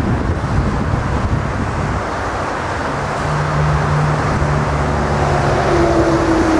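Airbus A380's four jet engines rumbling on final approach, with gusty wind buffeting the microphone. A steady low hum comes in about three seconds in, and a higher whine joins it near the end as the aircraft closes in.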